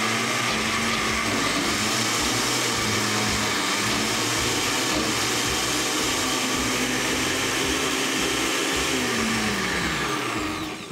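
Countertop blender motor running steadily as it blends a thick basil pesto. Near the end it is switched off and its pitch falls as it winds down.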